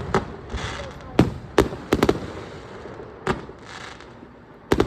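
Aerial fireworks bursting: about eight sharp bangs at irregular intervals, some in quick pairs, with short hissing spells between them.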